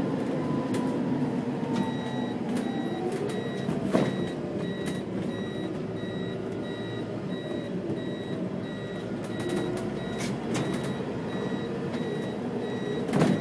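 City bus running, heard from inside near the front: a steady engine and drivetrain hum with a whine that falls in pitch over the first few seconds, light rattles, and a sharp knock about four seconds in and another near the end. A high electronic beep repeats evenly from about two seconds in until about ten seconds in.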